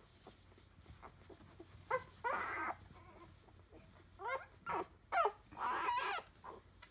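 Week-old Entlebucher puppies whining: short gliding squeaks, a pair about two seconds in, then a run of several from about four seconds on, ending in a longer wavering cry.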